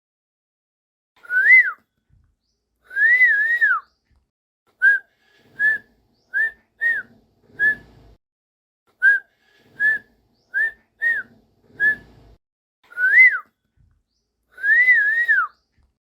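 A whistled tune of clear, pure notes: a rising-and-falling whistle, a longer two-part whistle, then a run of about ten short quick notes, ending with another rise-and-fall and a two-part whistle.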